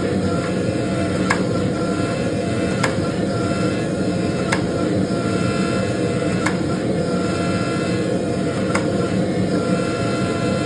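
12-ton forging press running steadily, with a thin whine that comes and goes and a sharp click every couple of seconds.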